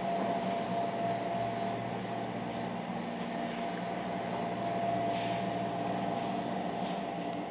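Steady drone of running bakery machinery, a low hum with a constant whine on top, like fans or ventilation.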